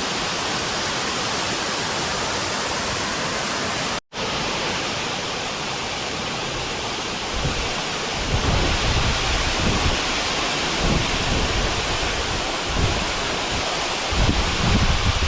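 Kakochang Waterfall's falling water, a steady hiss that cuts out for an instant about four seconds in. From about halfway, uneven low buffeting on the microphone joins it in gusts.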